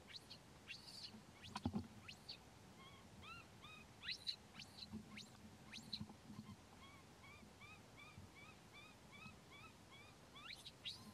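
Faint high-pitched squeaks and whimpering calls from an infant macaque. About three seconds in, a run of short arched calls begins, repeating about twice a second until near the end.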